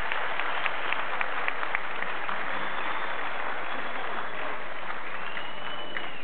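Audience applauding: a dense, steady patter of clapping, with a few sharp single claps standing out in the first two seconds.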